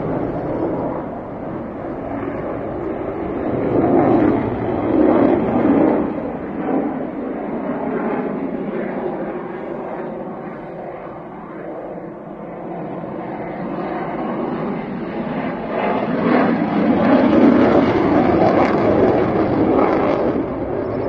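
Jet noise from a Sukhoi Su-30MKI fighter's twin AL-31FP turbofan engines as it manoeuvres overhead, a continuous roar that swells about four seconds in, fades in the middle, and swells again, loudest near the end.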